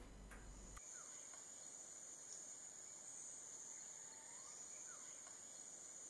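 Faint forest ambience: a steady, high-pitched insect drone, with a few faint short calls in the background.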